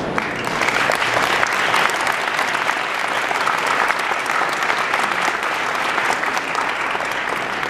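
Audience applause: many people clapping their hands steadily after a tribute speech.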